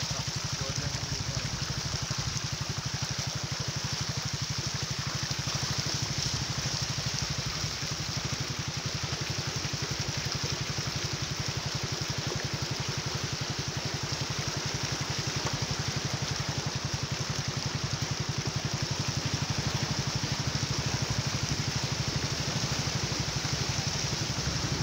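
Vehicle engine running steadily with an even, rapid low pulse while moving through floodwater, over a constant rushing noise of water and wind.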